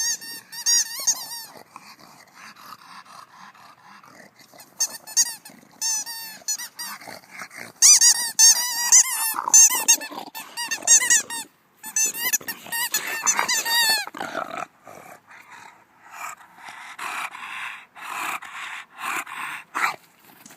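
A bulldog chewing a squeaky rubber toy, setting off rapid bursts of high, wavering squeaks, loudest in the middle. Rougher growling follows near the end.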